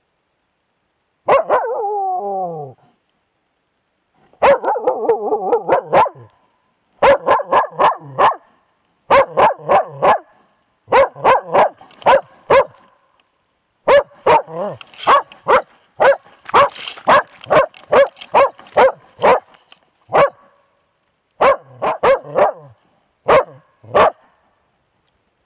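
Young moose-hunting dog bay-barking at a moose cow and calf, picked up very close by a camera strapped to the dog. Two drawn-out yelping calls falling in pitch come first, then quick runs of short, sharp barks, several a second, in bursts with short gaps.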